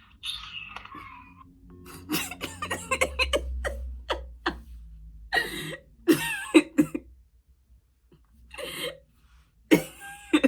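A person coughing several times in short, sharp bursts.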